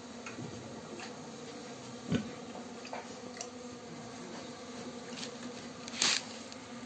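Honeybees buzzing as a steady low hum, with scattered small clicks and taps from handling. A louder knock comes about two seconds in, and a short, loud scrape comes near the end.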